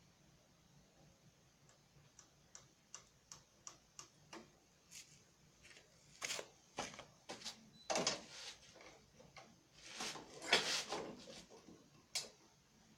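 A run of light, evenly spaced clicks, about three a second, then louder irregular knocks and a longer scraping rush about ten seconds in: hands working on a lawn mower during an oil change.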